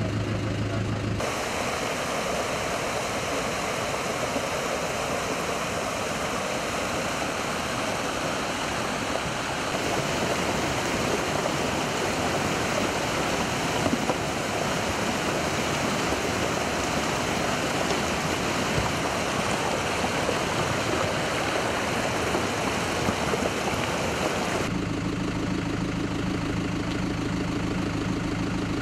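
Muddy flash-flood water rushing over rocks and stones in a steady, loud torrent, starting about a second in and cutting off abruptly near the end. Before and after it, a vehicle engine idling steadily.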